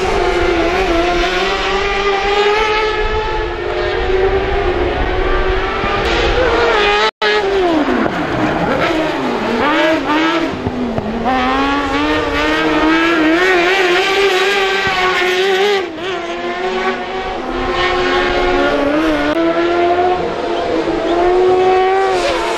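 Crosscar buggies racing, their high-revving motorcycle-type engines running hard. The pitch climbs and drops with throttle and gear changes, with more than one car heard at once. Just after seven seconds in, the sound cuts out for an instant, and then one engine note falls steeply and climbs back.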